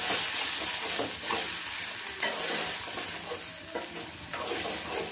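Onions and spice paste sizzling in hot oil while being stirred with a metal spatula in a metal pot; a little water has just been added so the spice paste doesn't burn.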